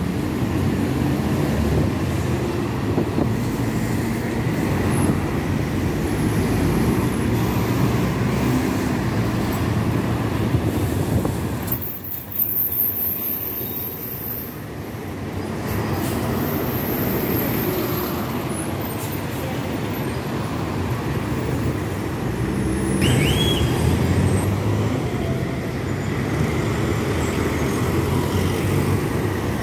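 City street traffic dominated by buses: bus engines running as a steady low rumble as buses and cars pass along a busy avenue, with a short break about twelve seconds in.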